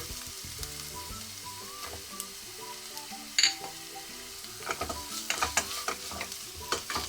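Ginger-garlic paste frying with browned onions in ghee and oil: a steady sizzle, with one sharp tap about three and a half seconds in and frequent stirring scrapes and taps against the pan from about five seconds in.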